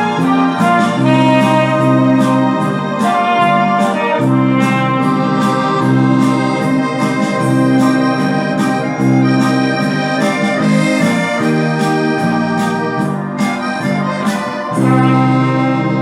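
Trumpet playing a classical concerto melody in D minor over an accompaniment of sustained, organ-like low chords.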